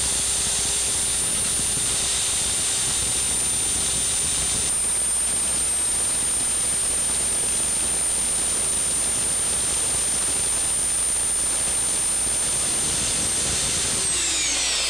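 Hammer drill boring a new anchor-bolt hole into concrete, running steadily at full speed with a high motor whine, then winding down near the end as the trigger is released.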